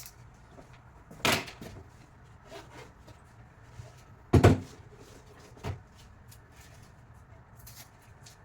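A few sharp knocks and clatters of tools and equipment being handled, most likely the battery tester and its clamps being picked up and set down. There are three knocks, the loudest about four and a half seconds in, with faint clicks between them.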